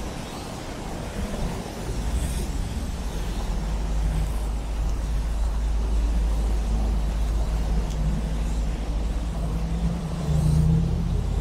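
Road traffic with a heavy vehicle's engine running close by: a steady low rumble that grows louder about two seconds in.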